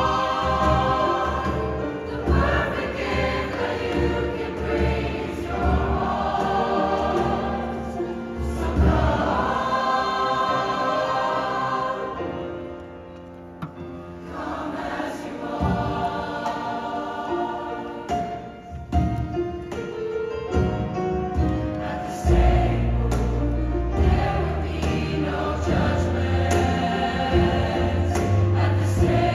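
Large mixed choir singing a slow Christmas song in sustained chords with piano accompaniment. A brief softer passage comes about halfway through, and the sound grows fuller, with deep bass notes, in the last third.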